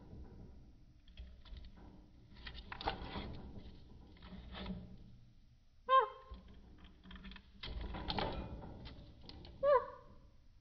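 A bird gives two short, honk-like calls that fall in pitch, about six and nine and a half seconds in. Scratching, rustling and clicking sounds come between the calls.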